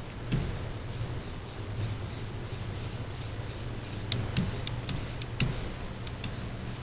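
Rhythmic rubbing strokes on the boat's fibreglass floor, about three a second. Sharp clicks come in the second half, and short knocks come near the start and twice later on.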